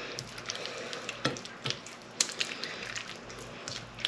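Bare hands rubbing a thick tandoori marinade into a raw spatchcocked chicken: irregular wet squelches with small sharp smacks.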